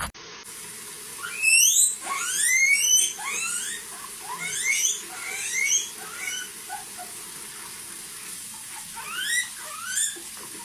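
A small animal making a series of short, high, squeaky calls, each sweeping sharply upward in pitch, coming in little clusters with a pause in the middle.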